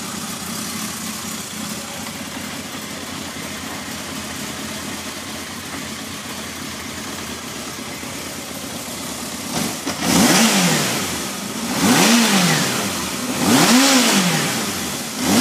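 Kawasaki KZ650B's air-cooled inline-four engine idling steadily, then revved in quick throttle blips, each rising and falling back, about every two seconds through the last five seconds.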